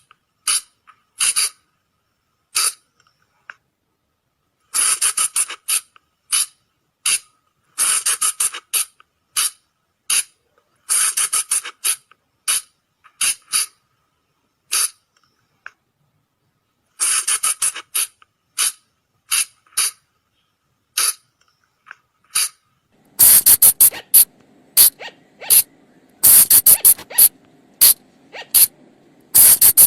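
Colugo (flying lemur) calls: short, shrill shrieks repeated in quick clusters of several, with silent gaps between the clusters. This is a lure call, played to draw colugos in at night. Near the end the calls come thicker, over a steady low hum.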